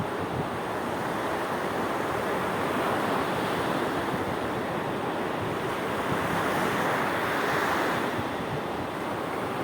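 Sea waves washing onto the shore, a steady rush that swells and breaks most strongly about three-quarters of the way through, with some wind noise on the microphone.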